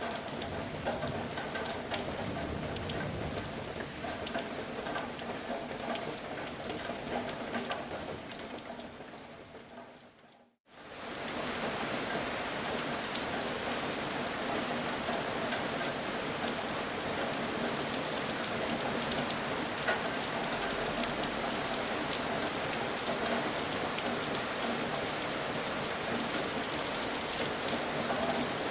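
Rain falling steadily, fading out about ten seconds in to a moment of silence, then a brighter, steadier rain hiss cuts in abruptly and holds to the end.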